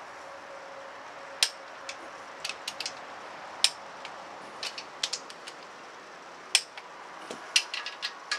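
Click-type torque wrench set to 65 Nm, clicking as gearbox bolts are tightened: irregular sharp metallic clicks from the ratchet, with a few much louder single clicks among them.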